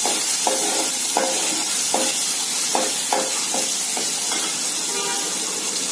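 Chopped onion and tomato sizzling in hot oil in an aluminium pot, with a steel ladle stirring and clinking against the pot several times, mostly in the first few seconds.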